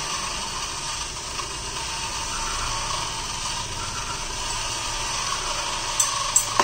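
Small 12 V DC gear motors driving a conveyor belt, running with a steady mechanical whir and rattle. Near the end come two sharp clicks in quick succession.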